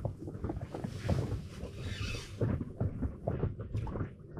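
Wind buffeting the microphone, an uneven rumble with swells of hiss, over many small irregular knocks.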